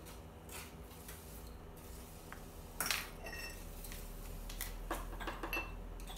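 Small tool tapping and scraping against a handheld wooden board in light, scattered taps. About three seconds in there is a louder clink with a brief ring, and more taps come around five seconds in.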